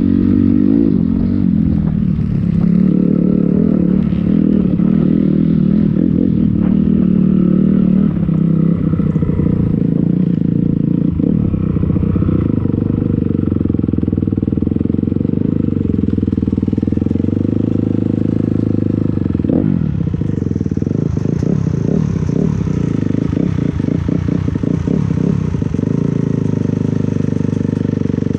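250 dirt bike engine running steadily as it rides along a rough trail. From about two-thirds of the way in, short rattles and knocks come from the bike as it goes over bumps.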